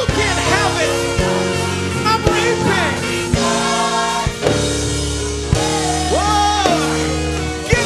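Gospel music: voices singing over a band with sustained low bass notes and regular drum hits.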